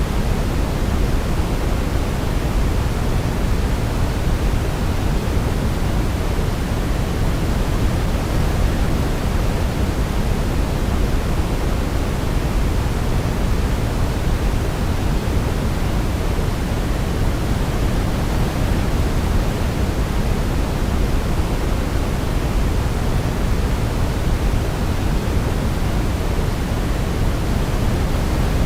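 Steady, unbroken sleep-aid noise, strongest in the lows and falling off toward the highs, like pink noise; no melody is heard.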